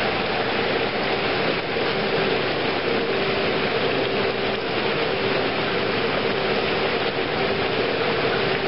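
Water churning and splashing steadily in a catfish egg hatching trough, with a steady machine hum underneath.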